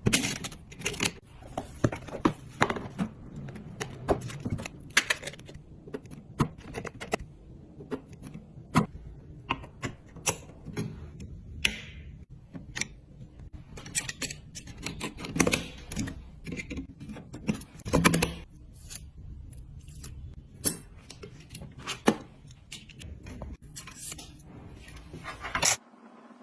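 Irregular clicks, clacks and light knocks with some rustling as computer parts are handled and fitted together during a PC assembly, a few sharp louder clacks standing out.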